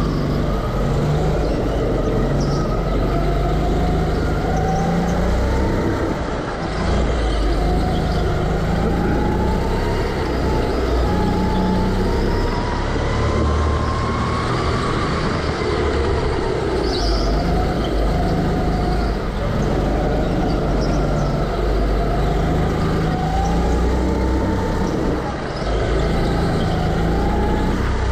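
Go-kart driven at speed, heard from the driver's seat: the motor's pitch climbs over a few seconds and drops back again and again as the kart speeds up and slows, over a heavy low rumble.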